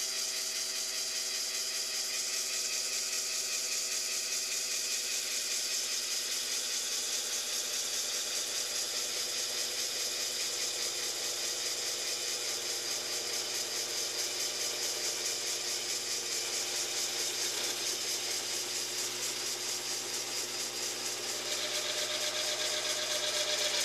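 A Taig lathe running while a spring parting-off tool cuts into a mild steel bar about an inch and five-eighths across, with a steady fast rattling chatter. It grows louder near the end. The bar is too big for this small lathe to part easily.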